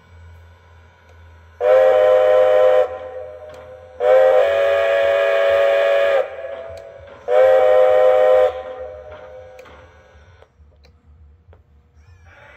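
Steam whistle from the onboard sound system of a Lionel Legacy Strasburg #90 model Baldwin 2-10-0 locomotive, blown three times with the middle blast the longest. Each blast is a chime of several tones. A low steady hum runs underneath.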